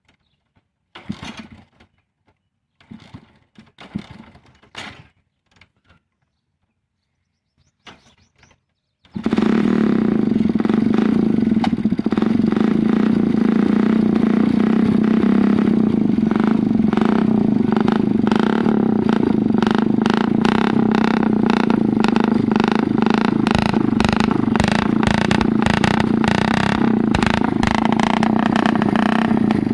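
A few scattered clicks and rattles, then about nine seconds in a motorcycle engine starts suddenly and runs loud and steady at one speed, with a rapid patter of exhaust pulses.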